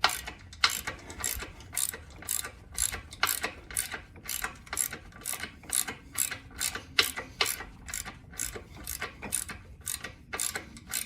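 Hand ratchet wrench clicking steadily, about three clicks a second, as a stubborn bolt holding the old power jack on the trailer's A-frame is worked loose.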